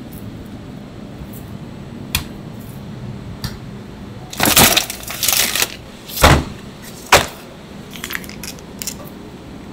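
A chef's knife slicing through raw pork loin on a plastic cutting board. Halfway through come three short scraping strokes, the last ending in a thud, then a sharp knock on the board. Near the end there is light crinkling as the knife cuts into a vacuum-sealed plastic bag of pork.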